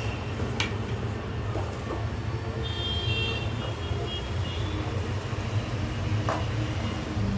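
Steady low background rumble, with a brief high tone about three seconds in and a few light knocks from a bag and stationery being handled.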